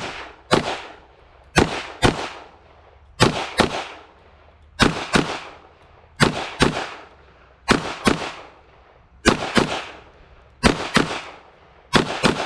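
Smith & Wesson M&P 2.0 22 Magnum pistol firing .22 WMR rounds in quick pairs, the two shots about a third of a second apart and a pair every second and a half or so, nine pairs in all. Each shot has a short echo. The pistol keeps cycling through the magazine without a stoppage.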